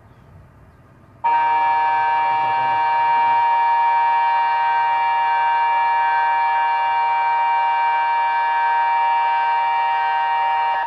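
Tsunami early warning siren sounding in a test: a loud, steady chord of held tones that starts about a second in, neither rising nor falling, then cuts off suddenly after about nine and a half seconds.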